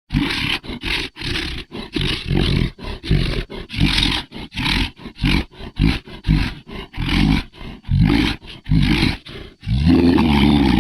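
Monster roar sound effect: a rapid string of short, harsh roars, about two or three a second, then one long unbroken roar starting near the end.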